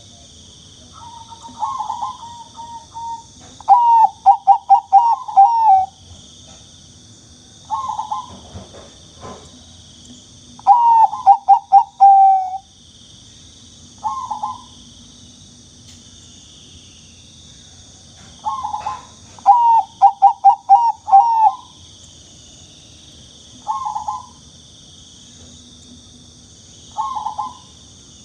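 Zebra dove (Bangkok perkutut) cooing: three runs of quick staccato coos, each a second or two long, with single short coos in between.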